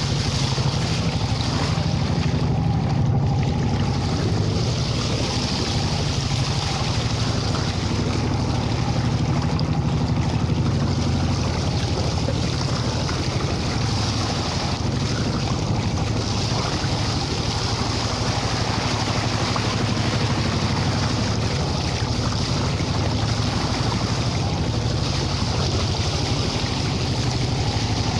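Wooden fishing boat under way: its engine runs steadily underneath the rush and splash of the bow wave along the hull, with wind buffeting the microphone.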